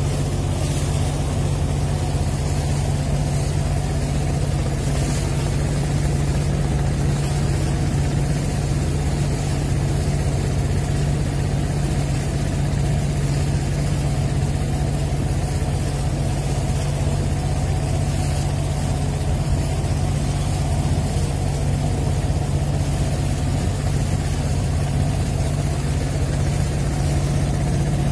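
Engine of a small wooden river boat running steadily under way, a constant low drone that holds the same pitch throughout.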